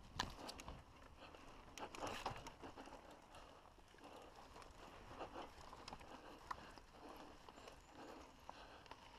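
Mountain bike rolling down a rough dirt trail, heard faintly as scattered, irregular clicks and rattles over a low rumble, with a louder cluster of knocks about two seconds in.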